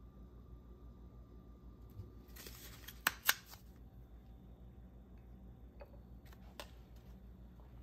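Quiet handling sounds over a low steady hum: a short rustle about two and a half seconds in with two sharp clicks close together, then a few fainter clicks near the end.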